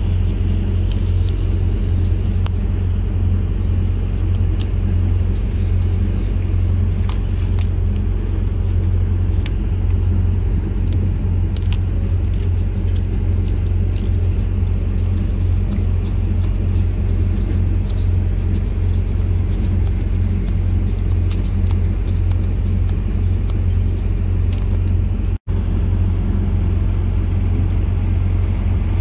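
Steady low rumble of an idling engine, with faint light clicks now and then; the sound cuts out for an instant about 25 seconds in.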